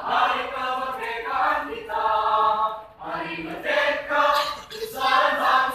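Mixed choir of men's and women's voices singing an Indonesian national song. It sings in held phrases with a short break for breath about three seconds in.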